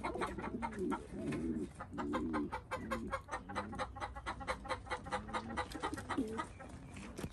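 Birds cooing: low, warbling calls repeated about once a second, with a quick patter of sharp clicks over them.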